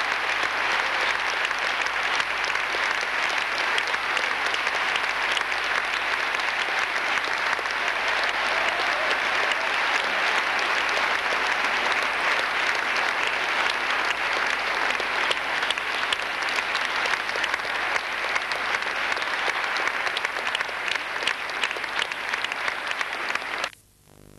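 Audience applauding steadily, a dense mass of clapping; the sound cuts off abruptly near the end.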